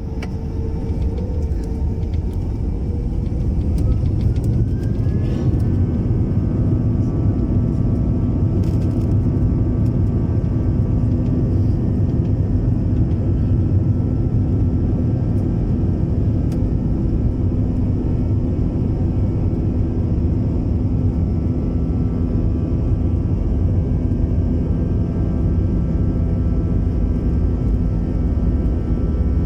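Airbus airliner's jet engines at take-off power: a loud low rumble that builds over the first few seconds and then holds steady, with a whine rising in pitch about five seconds in.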